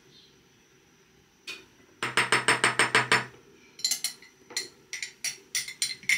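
Metal spoon knocking and clinking against glass jars and a bowl while horseradish paste is scraped out and spooned into jars. About two seconds in comes a quick run of about ten knocks, then irregular ringing clinks.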